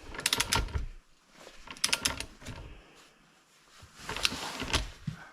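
Clicking and clattering of hand tools as car lug nuts are run down: short runs of sharp clicks in the first second and again about two seconds in, then a brief rustling scrape near the end.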